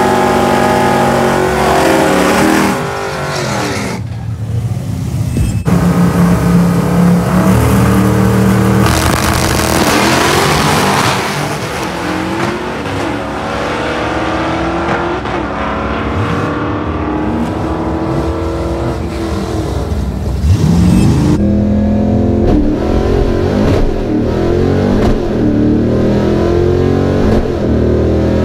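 Fox-body Ford Mustang 5.0 V8 drag cars revving and launching down the strip, their engines rising and falling in pitch as they go through the gears. Near the end the silver car's V8, with open exhaust pipes dumped behind the door, is heard from inside its cabin.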